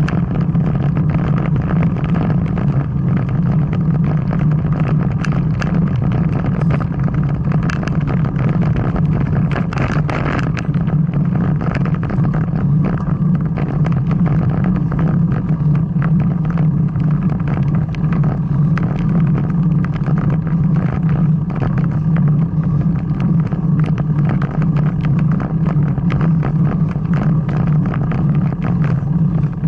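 Steady low rumble with many small knocks and rattles: road and wind noise picked up by a camera riding along on a bicycle climbing a mountain road.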